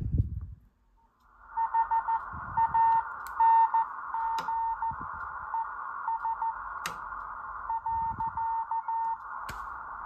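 A Morse code (CW) signal from a Collins 75A-4 receiver's speaker: a steady tone keyed on and off in dots and dashes, over band hiss heard through a narrow filter. The hiss and signal fade up from near silence about a second in as the RF gain is turned up, and a few sharp clicks come through.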